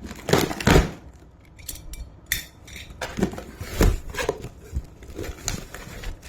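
A parcel holding a helmet visor being handled and opened: irregular knocks and rustles, several in a row about half a second in and more from about three seconds on.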